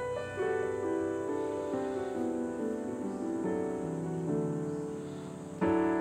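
Background music: soft notes stepping slowly downward in pitch, then a louder chord struck near the end.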